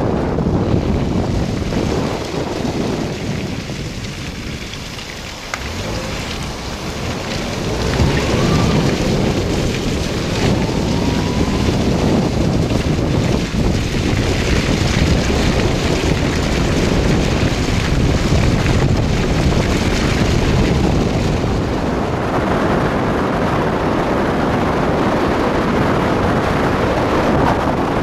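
Car driving over a wet, muddy road: steady tyre noise and splashing, with wind on the microphone. The noise drops a few seconds in, then picks up again from about eight seconds.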